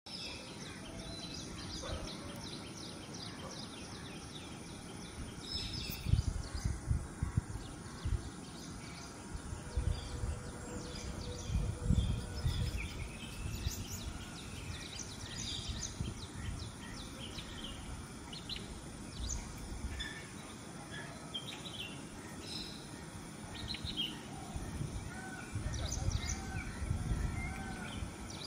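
Small birds chirping and twittering in a busy background chorus, with low rumbles on the microphone a few times.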